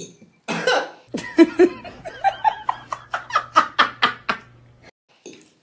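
A woman laughing in a rapid run of short pulses that lasts about four seconds, after one short burst.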